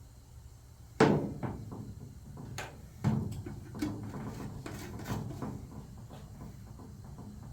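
A loud knock about a second in and another about three seconds in, followed by a run of lighter clicks and clatters, as of hard objects being handled and set down.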